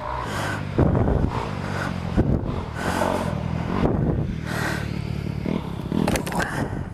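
Honda CRF250R's 250 cc four-stroke single-cylinder dirt bike engine running, with the rider breathing hard close to the microphone in a string of loud breaths.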